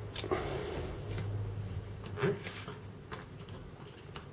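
Quiet handling of a small cardboard box and its foam insert on a counter mat, with a few light taps and rubs.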